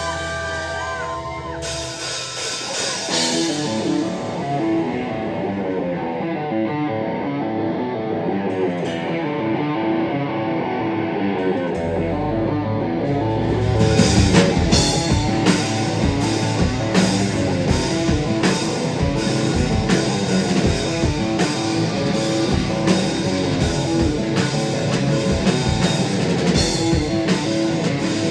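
A rock band playing live, with electric guitar and drums. The bass and full drum kit come in about twelve seconds in, and the song grows louder a couple of seconds later.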